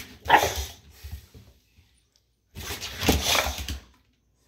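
Young boxer dog vocalizing: a short, loud bark-like call just after the start, then a longer run of vocalizing in the second half.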